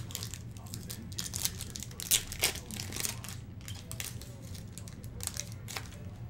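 Foil wrapper of a Topps Chrome trading card pack being torn open and crinkled by hand. It makes an irregular run of crackles and rips, loudest about two seconds in.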